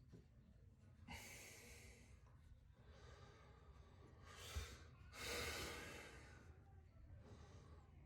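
A person's faint breathing: a series of slow breaths, each about a second long, the longest a little past halfway, with a light knock just before it.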